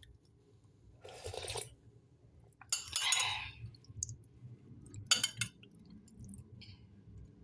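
Dishes and utensils clinking in three short bursts: about a second in, around three seconds and around five seconds, with a few light ticks between.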